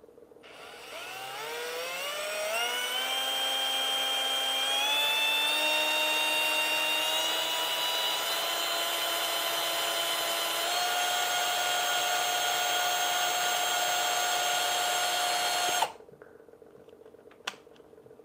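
Handheld power drill boring a twist bit into a solid SLA-printed resin figure. The motor whine climbs in pitch over the first few seconds as it speeds up, then holds steady. It steps up slightly about two-thirds of the way through and cuts off suddenly near the end, followed by a single click.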